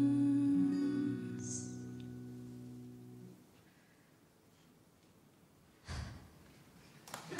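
The band's final chord, guitar among it, held and fading away over about three seconds, followed by a hush. A short burst of noise comes about six seconds in, and applause begins at the very end.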